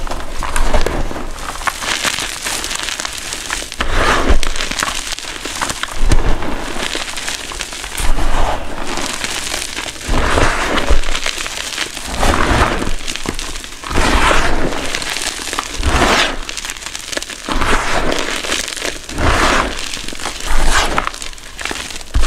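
Hands squeezing and crushing soft gym chalk in a bin of loose chalk powder. Repeated crunchy, crumbling squeezes come roughly every two seconds, each with a soft low thud.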